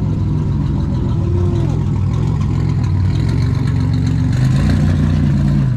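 Vehicle engine running steadily, rising in pitch a little past halfway through, held there, then dropping back at the end.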